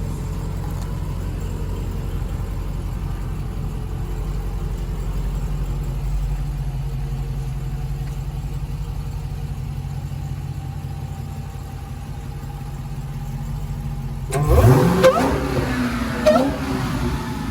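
2020 Dodge Charger Hellcat's supercharged 6.2-litre V8, breathing through a newly fitted carbon-fibre cold air intake, idling steadily, then revved sharply twice near the end.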